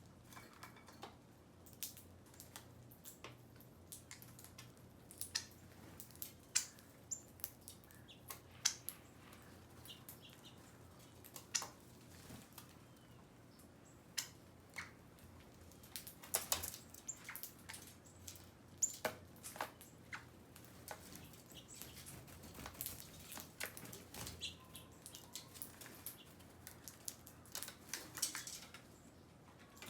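Birds feeding: many small, sharp pecking clicks and taps at irregular intervals, some close together and some a few seconds apart.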